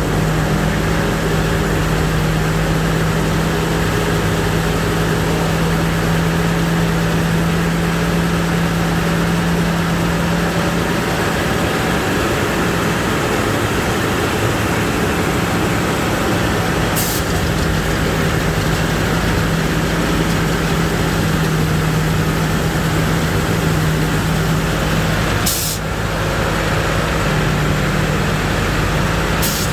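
Rice combine harvester running steadily while harvesting, a constant engine drone with machinery noise over it. There are three short sharp clicks, the first about halfway through and two more near the end.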